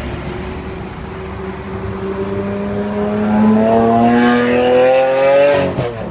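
Lamborghini Aventador's V12 engine accelerating past, its pitch rising steadily and growing louder, then a brief break near the end as it shifts up, the note resuming lower.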